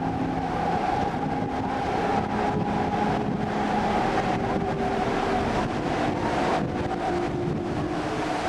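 A river boat's engine droning steadily, with water rushing along the hull and wind buffeting the microphone.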